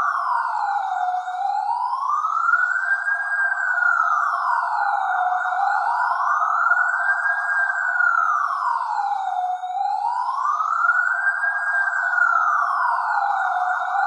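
Vietnamese police car siren sounding a slow wail, its pitch rising and falling smoothly about once every four seconds.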